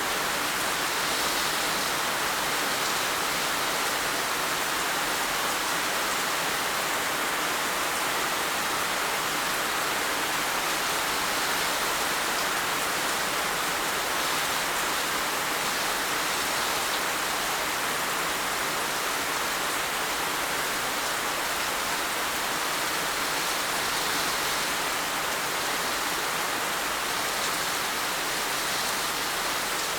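Heavy rain falling in a steady, dense hiss, with no individual drops or thunder standing out.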